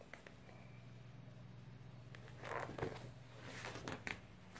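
Faint rustling and a few soft clicks as a picture book is handled and lowered, over a low steady hum.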